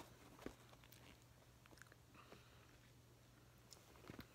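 Near silence: a few faint, short clicks and taps, the clearest about half a second in and near the end, over a steady low hum.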